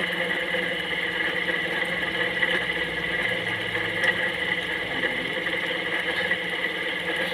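A steady machine hum holding several even pitches, unchanging throughout, with a faint tick about four seconds in.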